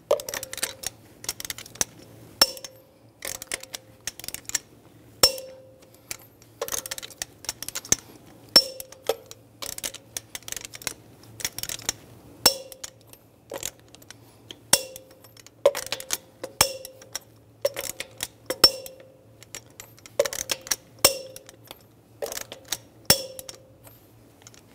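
Torque wrench and socket on a truck wheel's lug nuts, clicking sharply again and again as the nuts are brought to 130 ft-lb. The clicks come irregularly, about one a second, each with a brief metallic ring.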